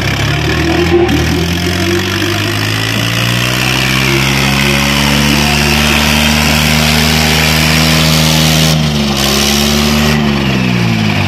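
Diesel tractor engines of a Swaraj 855 and a New Holland labouring at full throttle while hitched back to back in a tug-of-war pull. The engine note climbs over the first few seconds, holds steady under the load, then falls away near the end.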